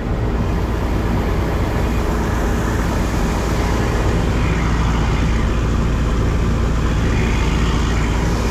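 A combine harvester's engine and machinery running steadily while its unloading auger empties wheat from the grain tank into a trailer. It is a loud, even, low drone with no change in pitch.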